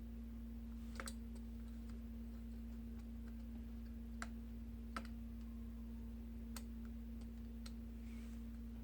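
Scattered small metallic clicks and ticks, about six, irregularly spaced, from a small screwdriver working the tiny screws that hold an Asus Zenbook laptop's heat-pipe cooling assembly. A steady low hum runs underneath.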